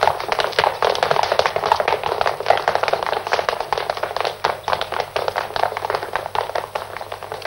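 Running footsteps of a crowd on pavement: a rapid, dense patter of many feet that thins a little near the end.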